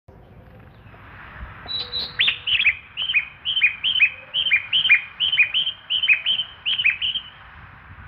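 A station platform guide chime for blind passengers plays recorded birdsong through a ceiling loudspeaker. It is a quick, regular run of chirps, each dropping in pitch, about two or three a second. It starts about two seconds in and stops near the end.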